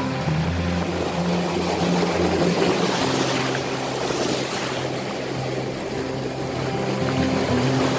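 Surf washing in over a rocky shore, swelling about three seconds in. Under it run sustained low tones that step to new pitches every few seconds.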